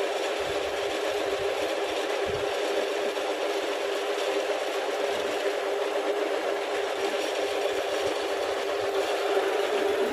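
Metal lathe running with its chuck spinning as the carriage is fed by hand, giving a steady machine hum.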